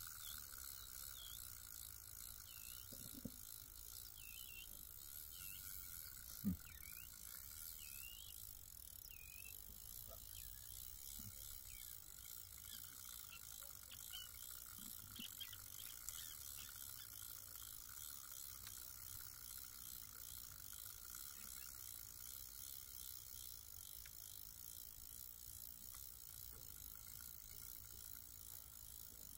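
Faint, steady ticking of a carp fishing reel's mechanism as line is wound in. There are a couple of soft knocks about three and six and a half seconds in.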